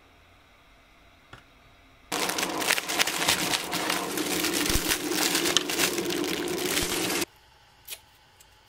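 A cleaver pressing down on a plastic-wrapped packet of dry food, crushing the contents: a dense crackle of tiny snaps mixed with crinkling plastic that lasts about five seconds and cuts off suddenly. A couple of light clicks follow near the end.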